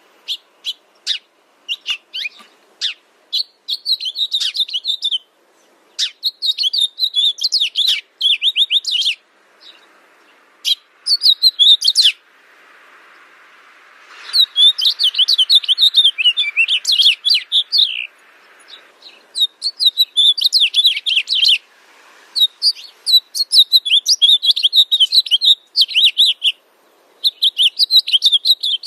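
Songbird chirping and twittering in rapid high phrases of a few seconds each, separated by short pauses.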